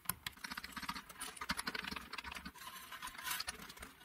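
Quick, irregular clicking and scratching from hand work on a guitar headstock's metal tuning machines, with a string winder on a tuner button.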